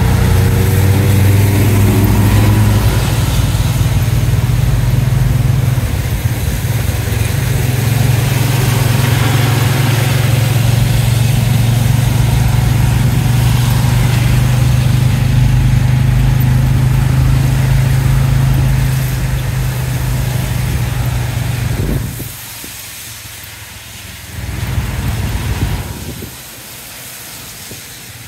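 Tuk-tuk's small motorbike engine running at a steady drone, with tyres hissing on the wet road. About three-quarters of the way through, the engine drops back as the tuk-tuk slows, picks up briefly, then drops again.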